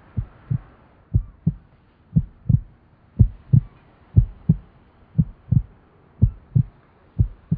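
A slow heartbeat: paired low thuds, lub-dub, about one beat a second, starting just after the opening moment.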